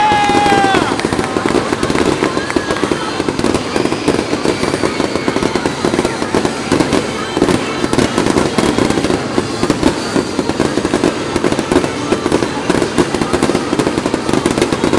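Aerial fireworks bursting: a dense, continuous crackling and popping of shells going off over a low rumble. A steady high whistle cuts off about a second in.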